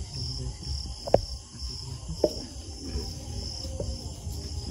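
Crickets chirping in a steady, pulsing high trill over a low rumble. Two sharp clicks about a second apart, the first about a second in, stand out as the loudest sounds, with a fainter click near the end.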